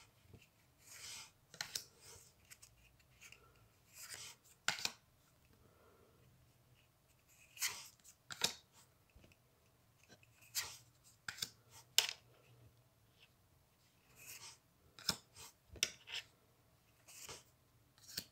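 Trading cards being slid one by one off a stack held in the hands, each giving a short swish or flick against the next card, irregularly about once a second and sometimes in quick pairs.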